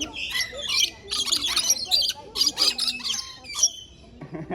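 A crowd of birds squawking and chirping in quick, overlapping short calls, easing off briefly near the end.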